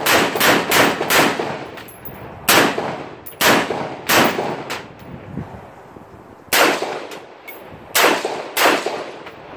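AR-15 rifle firing semi-automatic shots, about a dozen in all: four in quick succession in the first second, then single shots spaced a second or more apart.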